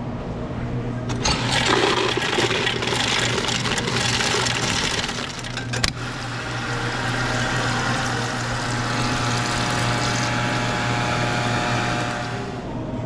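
Soda fountain dispenser running into plastic cups of ice: a long pour, a sharp click about six seconds in, then a second long pour that stops near the end.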